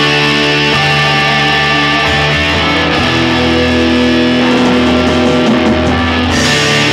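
A live band playing loud music led by electric guitars, sustained chords changing every few seconds.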